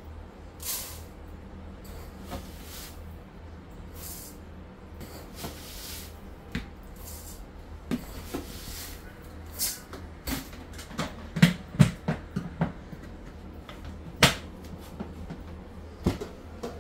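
Dry rice being scooped out of a plastic storage bin and tipped into a metal pot: short rustling pours and sharp knocks and clatters of the scoop and container, the loudest knocks a little past the middle. A steady low hum runs underneath.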